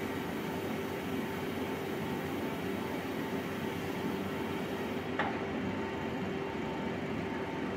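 Rotary clamp press for glued wood panels running with a steady motor-and-hydraulic-pump hum as its clamp frame turns, with one sharp click about five seconds in.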